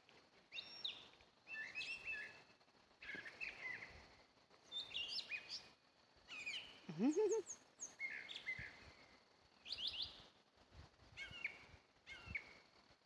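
A songbird singing, repeating short phrases of quick high chirps every second or two. About seven seconds in there is a brief low rising sound.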